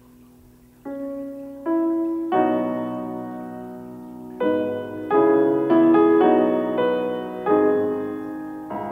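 Background piano music: slow chords struck every second or so, each ringing out and fading.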